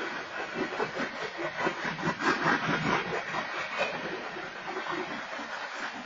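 Freight train's open-top hopper cars rolling past a grade crossing: a steady rush of wheels on rail with irregular clanks and rattles, loudest a couple of seconds in.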